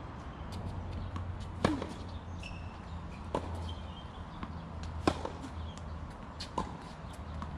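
Tennis rally on a hard court: the ball is struck back and forth with rackets. There are four sharp pops, roughly evenly spaced about a second and a half to two seconds apart, over a low steady rumble.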